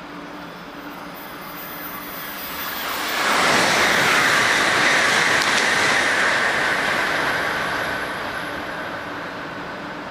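Shinkansen bullet train passing through the station at speed without stopping. A rushing noise builds, turns suddenly loud about three seconds in, holds for about four seconds with a high hum that drops slightly in pitch as the train goes by, then fades away.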